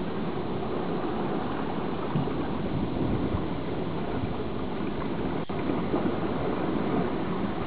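Steady rushing water noise, with one sharp click about five and a half seconds in.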